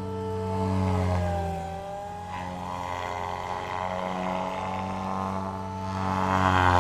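SAB Goblin 500 electric RC helicopter in flight: a steady rotor drone under a higher motor and gear whine that bends up and down in pitch. It swells louder about a second in and again near the end as the helicopter passes close.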